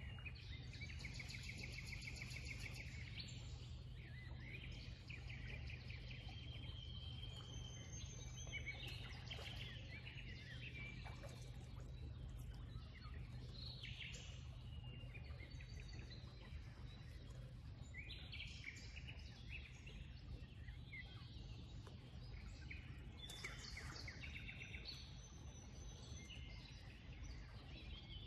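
Several songbirds singing and chirping, with short trills and phrases overlapping throughout, over a steady low background rumble.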